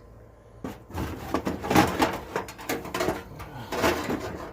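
Tools being rummaged through and lifted out of a toolbox: a run of clattering, rattling and rustling handling noises for about three and a half seconds.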